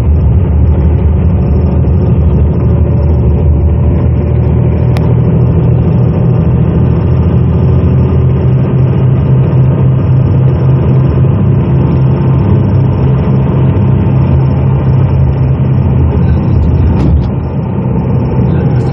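Steady low engine hum and road rumble heard from inside a moving coach bus, dipping slightly near the end.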